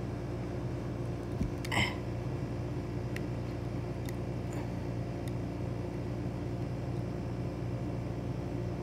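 Steady low background hum, with a few faint clicks and a short scrape about two seconds in as a small toy car is handled and turned over.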